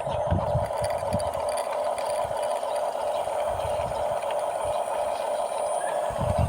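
Small RC bulldozer's electric drive motors and gearbox whirring steadily, with low bumps in the first second and again near the end.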